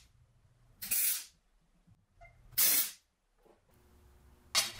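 MIG welder striking three short tack welds, each about half a second of crackling hiss, with short pauses between them, tacking small steel end caps onto a bracket.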